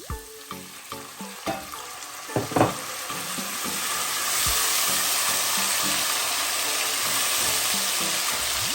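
Browned onions and ginger-garlic paste frying in oil in a pan, with oxtail stock just added. A spoon stirs, scraping and knocking against the pan for the first few seconds, then a steady sizzle swells about three seconds in and holds.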